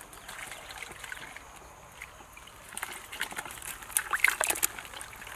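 Small fish and water being shaken out of the mesh end of a folding fish-trap net into a plastic basin of water: dripping at first, then a quick flurry of splashes and flapping fish about three to four and a half seconds in.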